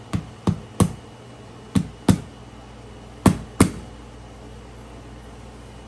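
Hammer striking a large flat-top nail to fix a door threshold strip to the floor: seven sharp blows, mostly in quick pairs, the last two the loudest.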